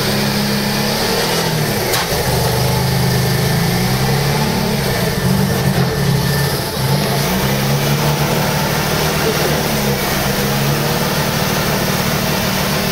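Mazda RX-7 FD3S's 13B twin-turbo rotary engine idling steadily shortly after its first start, its pitch drifting gently up and down now and then.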